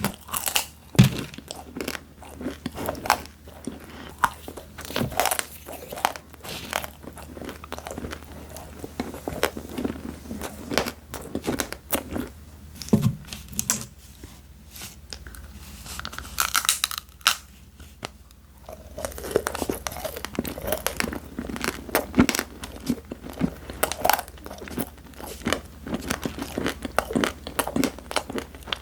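Close-miked chewing and biting of crispy snacks: crunchy fried nacho chips and hard crispy candy, a run of irregular crisp crunches and crackles with a short quieter lull in the middle.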